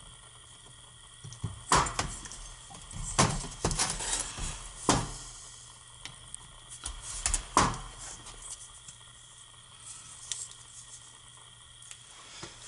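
Metal parts of a new U-joint knocking and clinking as the cross and its bearing cups are handled and fitted into an axle shaft yoke by hand on a steel workbench. About half a dozen separate knocks at irregular intervals.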